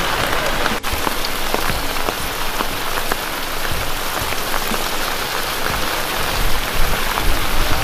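Heavy rain falling steadily: a dense, even hiss with many small drop ticks, briefly dipping about a second in.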